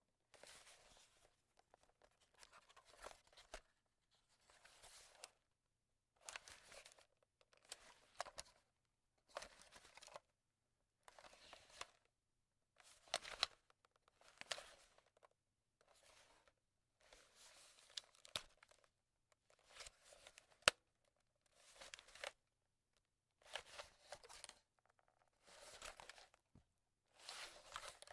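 A camera being handled: a string of short rustling and scraping bursts, roughly one a second with brief gaps between them, some with small sharp clicks.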